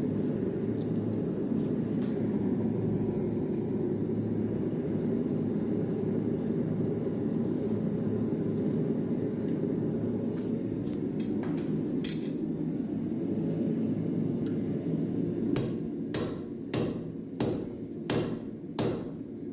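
Hand hammer blows on hot steel while a nail is forged: a few single strikes, then, for the last few seconds, a steady run of ringing blows about two a second. A steady low roar runs underneath throughout.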